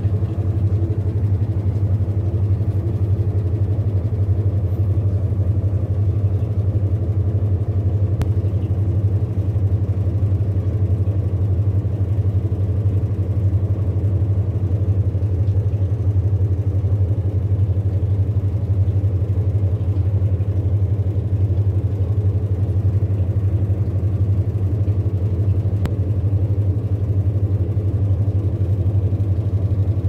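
IFB TL-SDG 9.5 kg Aqua top-load washing machine spinning a wet blanket at full speed in its spin cycle: a steady low hum that holds even throughout, with no knocking or wobble.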